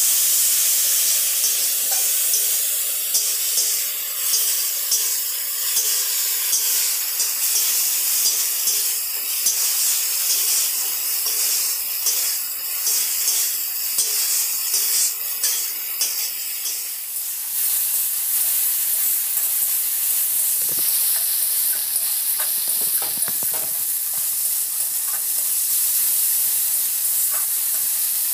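Spice paste of ginger, cumin and chilli with turmeric sizzling in hot oil in an aluminium kadai while a spatula scrapes and stirs it in repeated strokes; the masala is being fried down until the oil separates. About two-thirds of the way through the scraping stops and the sizzle carries on, with a few light knocks.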